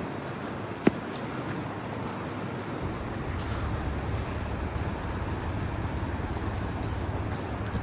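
City street traffic noise: a steady wash of sound, a single sharp click or knock about a second in, then a low vehicle engine rumble that comes up about three seconds in and holds.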